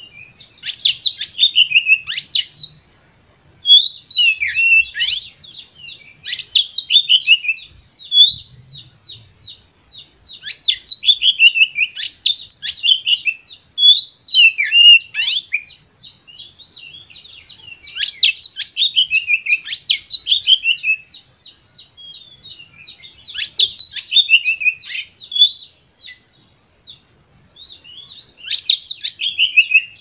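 Oriental magpie-robin (kacer) singing an agitated, loud song of the kind used to provoke other magpie-robins into singing. It comes in about eight bursts of rapid, sweeping whistled notes, each a second or two long, with softer twittering between them.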